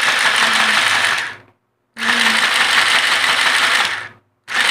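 Opened battery-powered mini sewing machine run in three short bursts of a second or two each, its motor and plastic gears running noisily. The noise is the sign of the motor's gear sitting too loosely to mesh properly with the drive gear.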